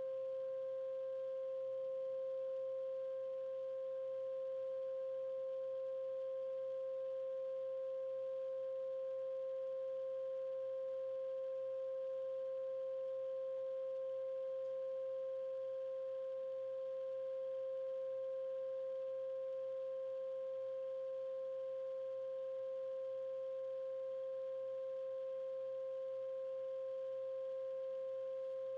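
A steady 528 Hz 'solfeggio' healing tone, a pure hum held unchanged at one pitch, with a fainter overtone an octave above.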